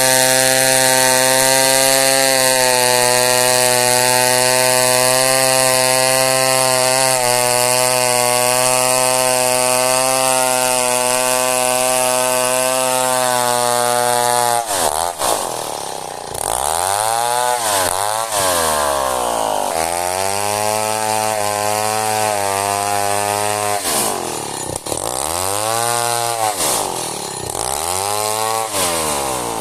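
Two-stroke chainsaw running at steady high revs while sawing through old merbau hardwood. About halfway through the note breaks off, and the engine's pitch then falls and climbs back several times as the throttle is eased and opened again.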